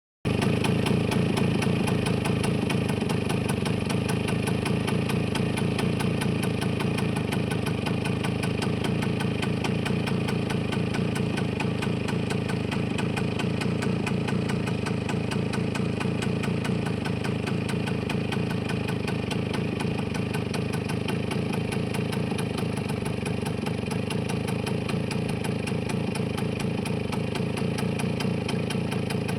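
Engine idling steadily with an even, rapid pulse, showing it off for a listen.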